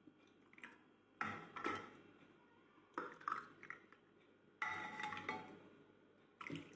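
Kitchen dishes and utensils clinking: about four clusters of light knocks, each with a short ring, a second or two apart.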